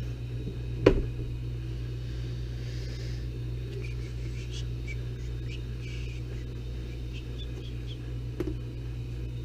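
A steady low hum, with a sharp, loud plastic knock about a second in and a softer knock near the end, from handling a UV nail-curing lamp and a plexiglass vacuum chamber; faint small ticks in between.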